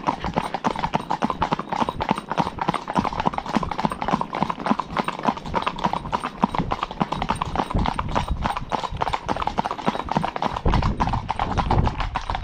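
Several ridden horses' hooves clip-clopping on a tarmac lane in a quick, uneven patter of overlapping strikes. A low rumble joins in near the end.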